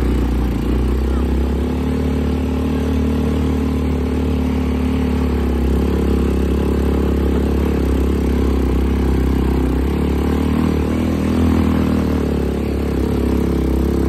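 Quad bike (ATV) engine running steadily under load as it climbs a steep dirt trail, its note rising and falling a little with the throttle.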